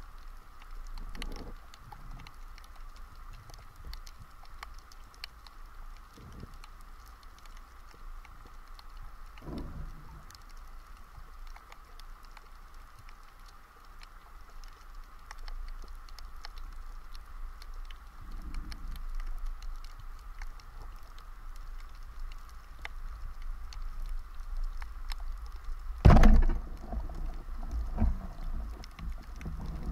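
Underwater recording from the action cam: a steady faint crackle of clicks in the water with a few soft low thuds. About 26 s in comes a sudden loud crack as a rubber-band speargun fires, followed by rattling and thrashing as the shaft and line take the fish.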